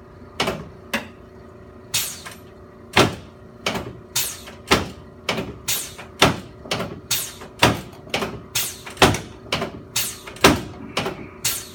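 A quick run of about twenty sharp clicks during a chiropractic adjustment, a few spaced about a second apart, then steadily about two a second, over a faint steady hum.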